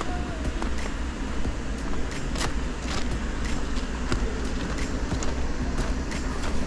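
Footsteps crunching on a gravel beach, about two steps a second, over a steady low rumble.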